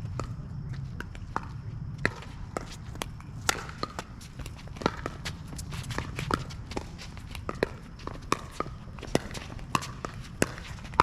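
Pickleball rally: sharp pocks of paddles striking the plastic ball and the ball bouncing on the court, about one or two a second, with footsteps of the players moving.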